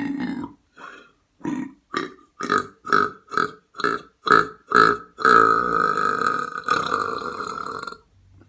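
A person belching: the tail of one long belch, then a rapid string of about ten short burps coming faster and faster, then one long, steady belch of nearly three seconds.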